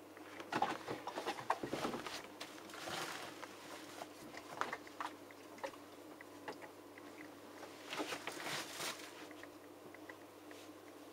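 Faint scattered clicks and rustles of handling in a small room, over a low steady hum.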